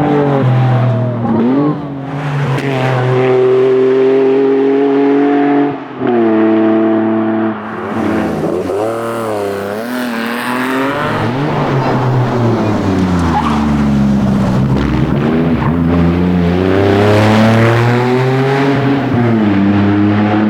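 Lancia Stratos rally car's engine under hard acceleration, revs climbing and dropping sharply at gear changes about 2, 6 and 7.5 seconds in. In the middle the revs fall away over a few seconds, then climb hard again.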